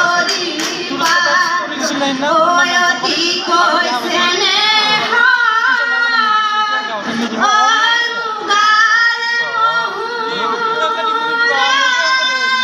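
Women singing a Jeng Bihu folk song, high voices holding long notes with wavering, ornamented bends.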